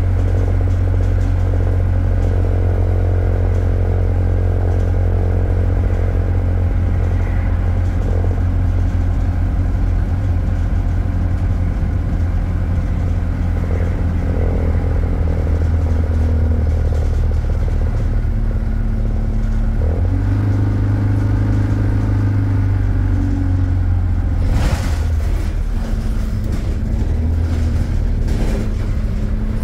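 Diesel engine of an Alexander Dennis Enviro200 single-deck bus heard from inside the saloon while under way, a steady low drone whose note steps to a new pitch about two-thirds through as the gearbox shifts. A brief rattle of the bus body comes near the end.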